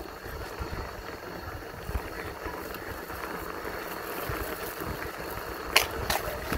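Polygon Xtrada 5 mountain bike rolling along a rough narrow dirt and concrete trail: steady tyre and riding noise with a low rumble, and two sharp clatters near the end as the bike jolts over the bumpy path.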